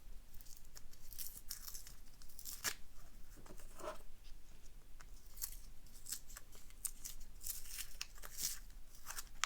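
Wrapping being torn and peeled off a key: a run of irregular crinkling and tearing sounds, some short rips louder than others.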